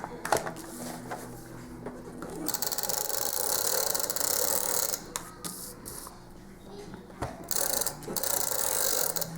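A tape runner drawn along the edges of a sheet of brochure paper, laying adhesive in two long strokes of about two seconds each, each a clicking rasp. Lighter clicks and paper handling come between the strokes.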